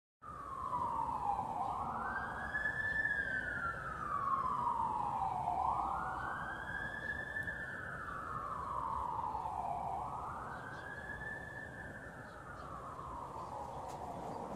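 Ambulance siren wailing as it passes, a slow rise and long fall in pitch repeating about every four seconds, growing a little fainter toward the end.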